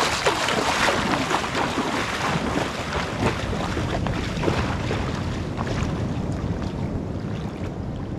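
Splashing of a person wading through shallow seawater, loudest at first and fading as the steps move away, over a low rumble of wind on the microphone.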